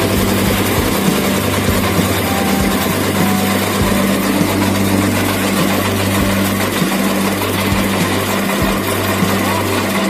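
Concrete mixer machine running with a steady hum, with irregular knocks and clatter over it.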